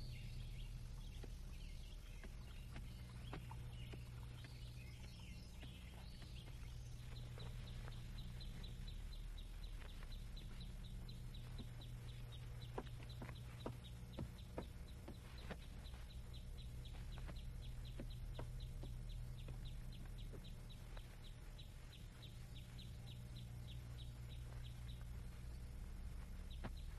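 Faint rural background ambience under a steady low hum. A few bird chirps come at the start, and a rapid, even run of short high ticks, like an insect calling, starts about a quarter of the way in and stops near the end.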